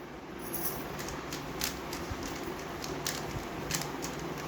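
A MoYu WRM V10 speedcube being turned by hand, its layers giving short sharp clicks at an uneven pace of roughly two a second, over a steady background hiss.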